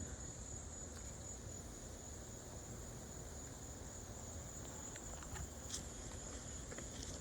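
A steady high-pitched whine held on one pitch under a low hiss, with a few faint rustles and taps about five to six seconds in.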